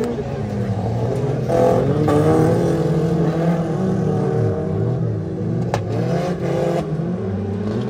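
Several small-displacement stock car engines (up to 1800 cc) revving and easing off as the cars race together, their pitches rising and falling over one another. A single sharp knock sounds a little under six seconds in.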